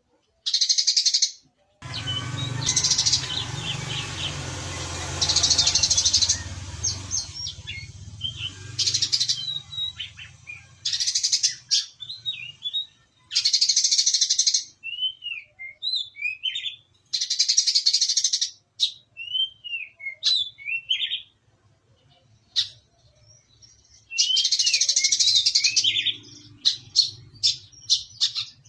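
Brown-throated sunbird (kolibri kelapa) singing in the sparrow-like 'gerejaan' style: repeated dense bursts of rapid high chatter, each about a second long, with short downslurred chirps in between. A low rumble runs underneath for the first several seconds.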